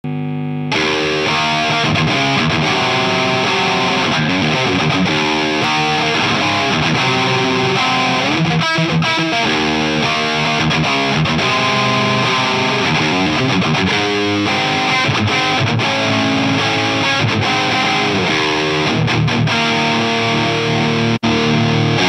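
Distorted electric guitar, a Gibson Les Paul played through an overdriven Hughes & Kettner Tubemeister tube amp head, playing riffs and ringing chords. The sound cuts out for an instant near the end.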